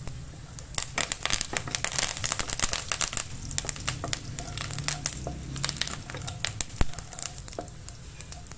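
Whole spices (green chillies, dried red chillies and bay leaf) crackling and spluttering in hot ghee in a kadai, stirred with a wooden spatula. The crackles come thick and fast, then thin out near the end.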